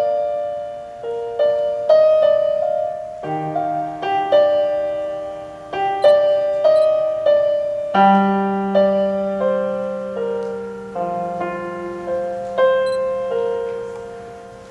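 Piano played slowly with no singing: single notes and chords struck about every half second to second, each ringing and fading, with a low chord held from about halfway through.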